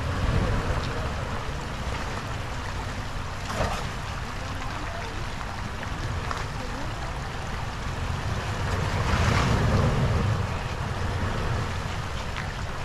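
Wind buffeting the microphone over the low rumble of a Toyota 4Runner SUV crawling slowly through a muddy rut. The noise swells about nine seconds in.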